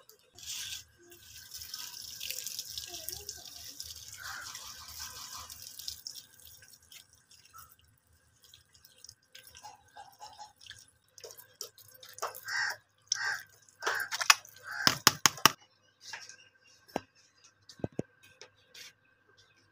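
Water running from a tap and splashing over hands into a plastic bowl, then a run of sharp splashes and knocks.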